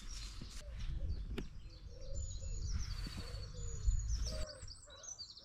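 Several songbirds singing and chirping, with high trills and chirps layered over each other and a few lower calls. Wind rumbles on the microphone underneath and cuts off suddenly about four and a half seconds in.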